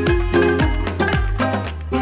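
Background music with a steady beat: drum strokes about twice a second over a held bass and melodic instrument notes.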